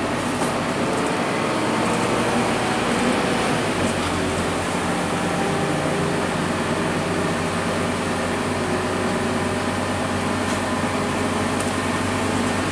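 Scania K230UB city bus's rear-mounted diesel engine running under way, heard from inside the passenger cabin over the steady hum of the air conditioning. The engine note shifts about four seconds in.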